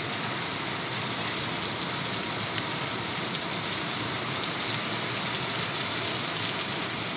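Heavy rain pouring steadily onto garden plants and shrubs, an even, unbroken rush of rain.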